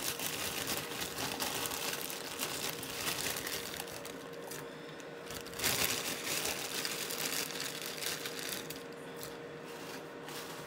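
Crinkling and rustling of plastic packaging as frozen mixed vegetables are tipped into a glass jug of hot water, louder for a moment about halfway through, with a faint steady hum underneath.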